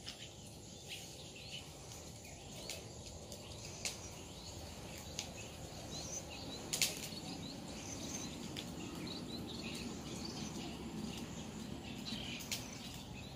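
Outdoor garden ambience with birds chirping faintly and a few sharp clicks, and a low rustling of leaves in the second half as holy basil sprigs are picked from a bush.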